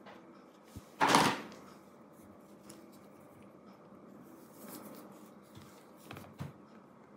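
Hands working on an opened laptop as its battery pack is taken out: a loud sharp knock about a second in, then soft scraping and a smaller knock near the end as the battery is lifted out of the plastic chassis.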